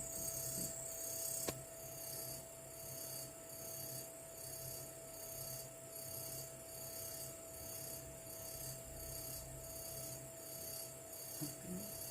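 Steady mechanical hum with a faint hiss that swells and fades evenly, about three times every two seconds, and a single sharp click about a second and a half in.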